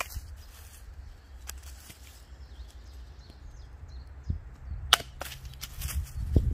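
Scattered sharp cracks and snaps of wood, single ones spaced a second or more apart, the loudest about five seconds in, over a low rumble that grows louder near the end.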